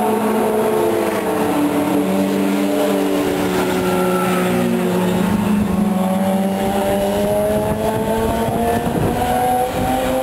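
Alfa Romeo racing car's engine running hard on a circuit, a steady note that dips slightly, then climbs in pitch from about six seconds in as the car accelerates.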